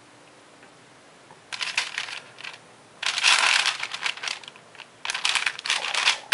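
Parchment paper crinkling and rustling under hands pressing cookie dough flat on it. The rustling comes in three bursts after a quiet first second and a half.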